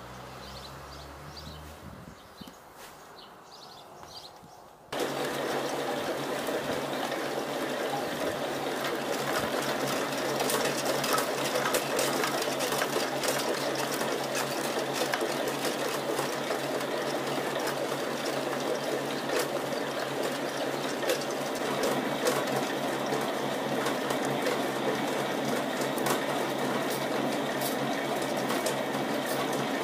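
Homemade pellet mill, belt-driven by an electric motor, running steadily with a hum and a dense crackling clatter as it presses moistened sawdust into pellets; it comes in suddenly about five seconds in, after a quieter stretch.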